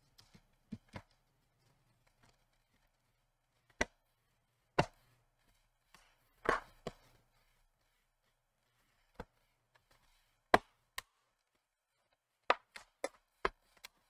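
Plastic bottom case of an HP TPN-C129 laptop clicking into place as it is pressed down: about a dozen sharp clicks and snaps at irregular intervals, with a cluster of them near the end.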